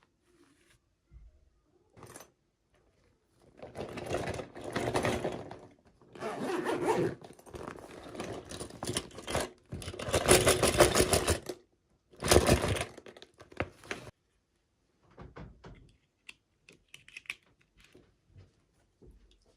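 Toy packaging being handled and opened by hand: several bursts of crinkling, scraping and tearing, loudest about ten seconds in, then a few faint clicks near the end.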